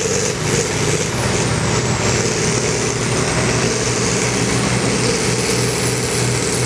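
Farm tractor's diesel engine running under full load, pulling a weight-transfer sled. A steady, heavy drone, with a faint high whine above it.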